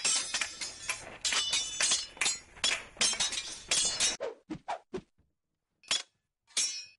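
Swords clashing in a fight: a dense run of sharp, ringing metal clashes that thins out after about four seconds into a few separate clangs.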